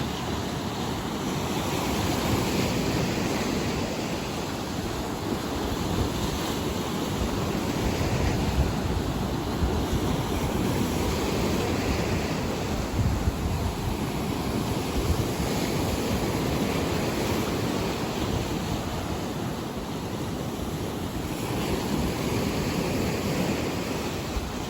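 Black Sea surf breaking and washing in continuously, swelling and easing every few seconds, with wind buffeting the microphone.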